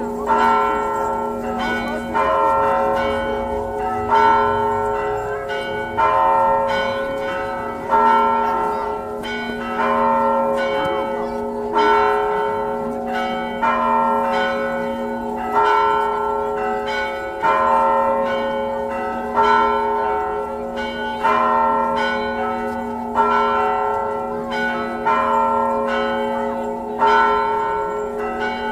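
Church bell ringing steadily, struck about every two seconds, each stroke ringing on into the next.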